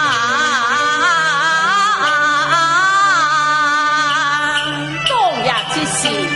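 Cantonese opera singing: one singer holds a long, wavering sung note over the instrumental accompaniment. About four and a half seconds in, the voice stops and the band plays on with falling slides and sharp struck accents.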